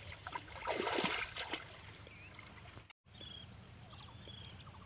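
Shallow muddy water sloshing and trickling as hands grope about under the surface, with a few soft splashy swishes in the first second and a half. The sound drops out for an instant about three seconds in, and after that the water is quieter, with a couple of faint short chirps.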